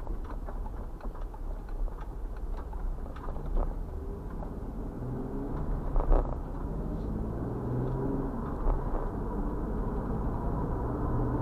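A car driving, heard from inside the cabin: steady engine and tyre rumble, with a few knocks as the wheels cross the railroad tracks and one louder thump about six seconds in. Near the end the engine hum climbs in pitch as the car speeds up.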